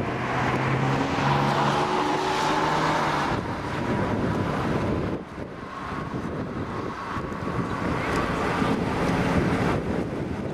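Strong wind gusting across the microphone in uneven surges, with a faint humming tone in the first few seconds and a thin whine later on.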